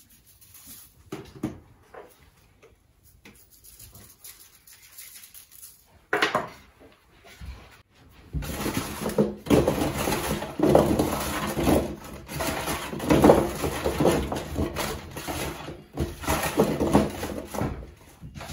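Faint shaking of salt over butternut squash cubes, a knock about six seconds in, then from about eight seconds in hands tossing the seasoned squash cubes around a metal roasting tray, a steady rustling clatter.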